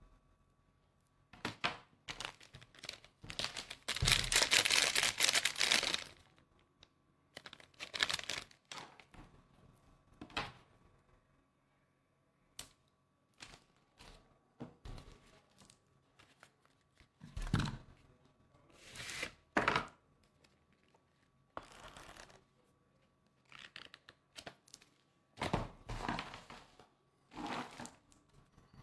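Close handling noise: bursts of rustling and crinkling with several dull thumps, the longest and loudest rustle lasting about two seconds about four seconds in.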